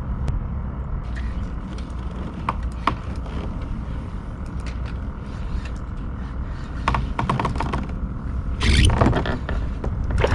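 Clicks and creaks of fishing tackle and kayak gear over a steady low rumble, with a quick run of clicks about seven seconds in and a louder rush of noise about nine seconds in.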